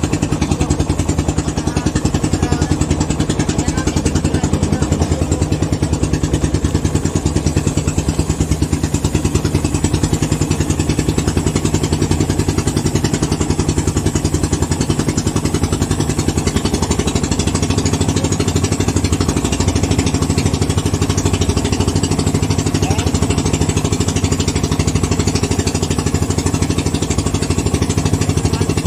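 Small engine of an outrigger fishing boat running steadily at a constant speed.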